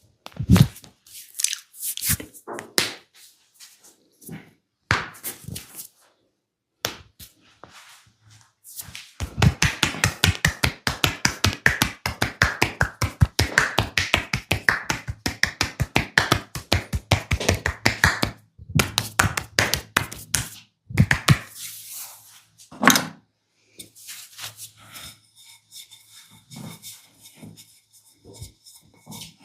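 Hands striking the body in percussive massage. Scattered slaps and thuds are followed by a fast, even run of chopping strikes, several a second, lasting about ten seconds, and then a few more single thuds.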